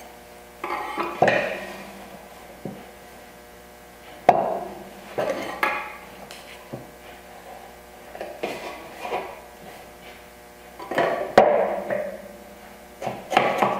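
Workshop handling noises from a square and boards being set in a wooden dovetail jig: a few sharp knocks and clunks with short ringing, and lighter taps between them, over a steady hum.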